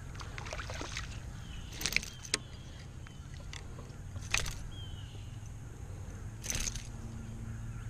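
A hooked largemouth bass splashing and thrashing at the side of a kayak as it is landed: a few short, sharp splashes and knocks over a steady low rumble of wind and water.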